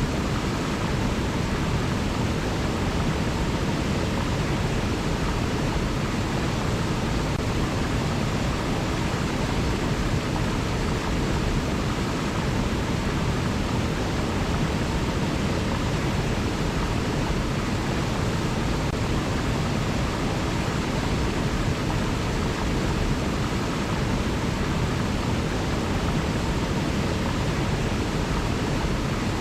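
River water rushing steadily, an even wash of noise with no change in level.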